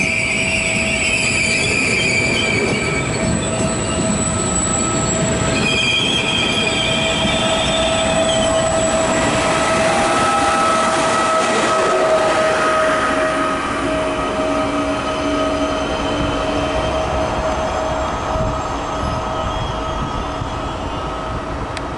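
Electric push-pull train of double-deck passenger coaches rolling past and away, its wheels squealing high-pitched in the first few seconds and again briefly, over a steady rumble. The locomotive at the rear passes about ten seconds in with a steady whine, and the sound then fades slowly as the train pulls away.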